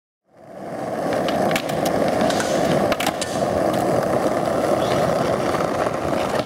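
Skateboard wheels rolling over rough asphalt, a steady gritty rumble with a few sharp clicks from cracks and grit, fading in just after the start.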